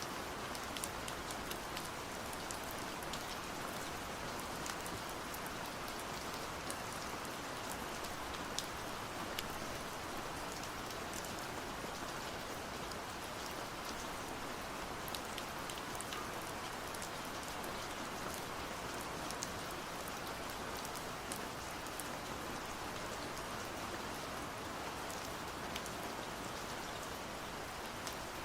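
Steady rain, an even hiss with many small, separate drop clicks scattered through it.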